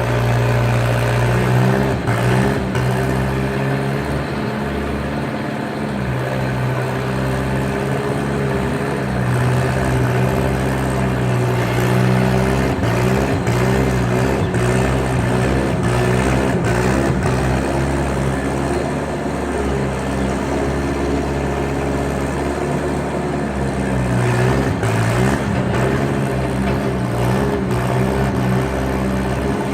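Skid steer engine running steadily at working speed, its pitch sagging briefly and recovering twice.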